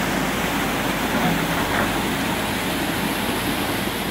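Fast-flowing mountain stream rushing over rocks and flood debris: a steady, loud rush of white water.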